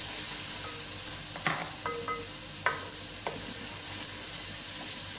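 Sliced onions and garlic paste sizzling in ghee in an aluminium pot, stirred with a wooden spoon that knocks against the pot several times.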